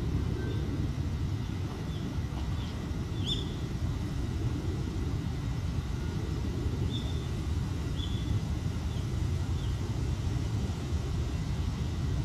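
Steady low outdoor rumble with a few short, faint high chirps, one about three seconds in and three more a second apart later on.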